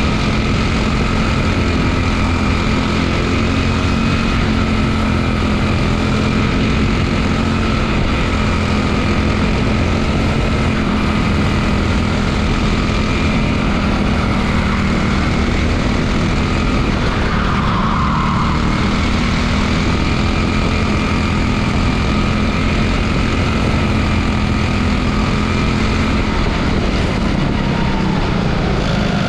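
Quarter midget race car's single-cylinder engine running at a near-steady pitch, heard from onboard the car, with a brief patch of extra noise about eighteen seconds in.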